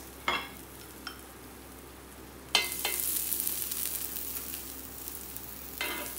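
Vegetables sizzling on the hot grill plate of a tabletop raclette machine: the sizzle starts suddenly a little over two seconds in as more vegetables are laid on, then slowly eases. A few short clicks of wooden tongs on the plate.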